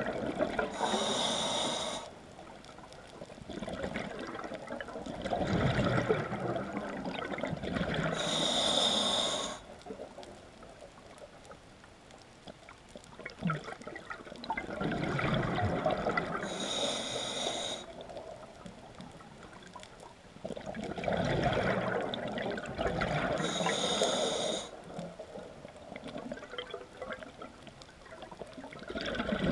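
A scuba diver breathing through a regulator: slow breaths about every seven seconds, each a spell of rushing bubbles and regulator hiss followed by a quieter pause, four or so in all.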